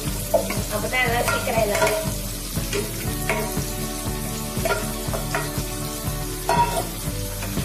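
Prawns coated in a ground coconut and chilli masala sizzling as they fry in hot oil in a non-stick pan over a high gas flame, freshly added so the oil bubbles hard around them.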